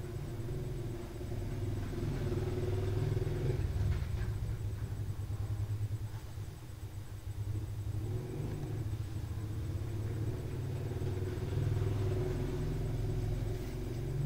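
Low, steady engine rumble of a motor vehicle, dipping briefly about halfway through and then building again.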